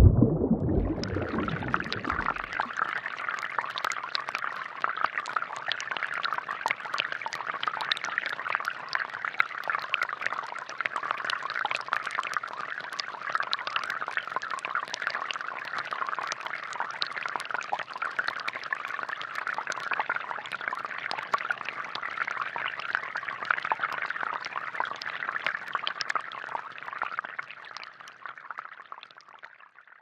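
Many thin streams of water falling from a perforated drinking-straw spout onto wet stones in a plastic tub: a steady pattering splash with many small drips, starting about a second in and fading away near the end. A low rumble dies away in the first two seconds.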